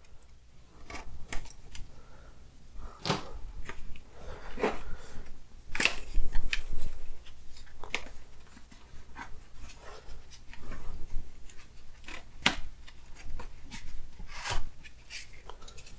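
Hands opening a small product box and handling its packaging: irregular clicks, scrapes and short rustles of cardboard and foam, with a few sharper snaps.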